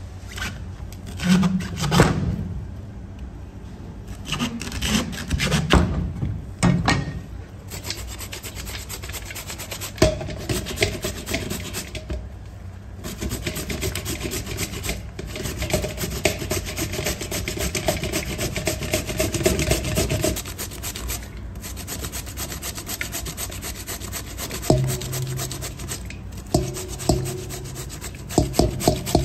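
Hand food preparation for dumplings: runs of quick rubbing, scraping strokes, a few louder separate strokes at first, then dense and continuous from about ten seconds in. A steady low hum joins near the end.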